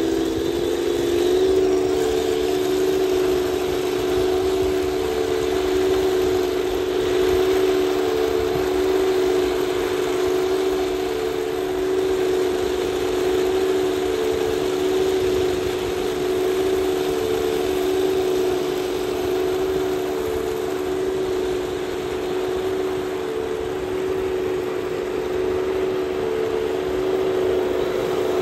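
Heng Long 1/16 RC Panzer IV F-2 model tank's built-in sound unit playing a simulated tank engine, running steadily with a slight step in pitch about a second in as the tank drives, over a steady hiss.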